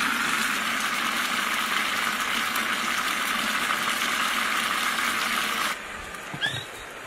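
Broth of frogs boiling hard in an open clay pot: a steady bubbling hiss that cuts off suddenly near the end. A brief knock follows as the lid is set back on the pot.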